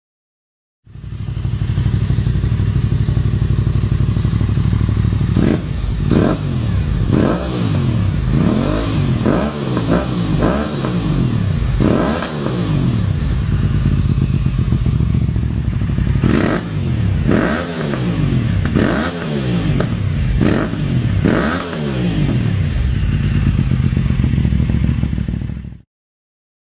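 Aprilia sportbike with an Akrapovič exhaust idling, then revved at standstill in two runs of quick throttle blips, each rising sharply and dropping back, with a steady idle between and after.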